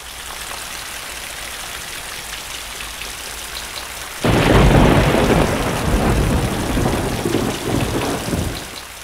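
A steady hissing noise, then about four seconds in a sudden, much louder rumbling noise that lasts some four seconds and dies down near the end.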